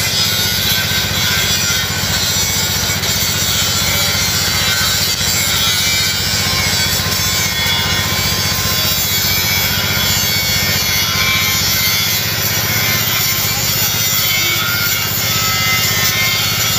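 Angle grinder cutting into a steel beam of a weighbridge frame, running steadily throughout, with background music with a steady beat underneath.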